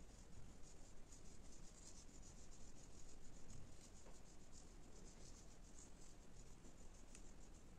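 Salt, pepper and paprika sprinkled by hand onto raw chicken breast slices and a plastic cutting board: a faint, fine patter of falling grains.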